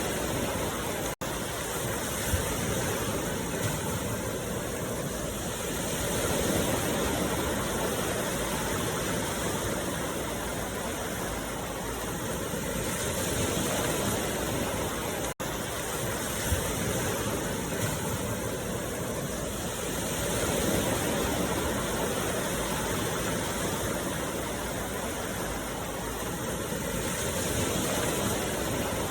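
Continuous rushing noise with no tone or beat, swelling and easing gently about every seven seconds, with two very short dropouts, one about a second in and one about halfway.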